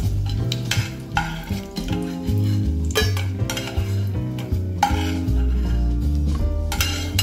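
Steel ladle scraping and clinking against a steel pot while fried cashews are scooped out of hot ghee, which sizzles lightly, with several sharp clinks spaced a second or two apart. Background music plays underneath.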